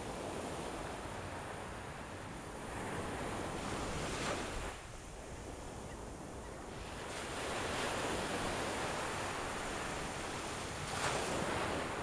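Surf washing up a sandy beach, a rushing noise that swells and eases: one surge builds to about four seconds in and drops away sharply, another rises from about seven seconds in and peaks near the end. Wind buffets the microphone throughout.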